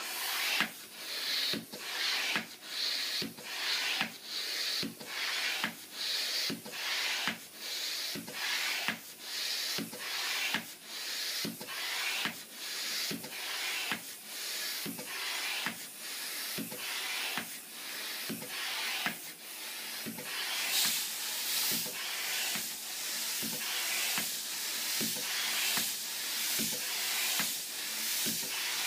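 Hand air pump inflating a balloon: a hiss of air with a light knock on each stroke, about one stroke a second. About two-thirds of the way through, the strokes grow louder and run into one another.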